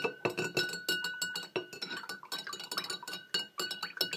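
A metal utensil stirring a liquid in a glass jar, clinking against the glass several times a second, the jar ringing between strikes.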